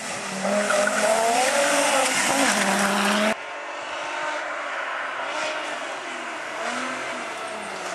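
Rally car engine revving hard through a corner for about three seconds, then an abrupt cut to another rally car's engine, quieter as it approaches along a lane, its pitch rising and falling with the throttle.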